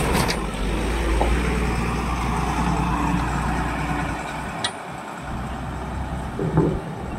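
Heavy diesel truck engine running at low revs. About four and a half seconds in it breaks off briefly and returns quieter as a truck drives slowly away.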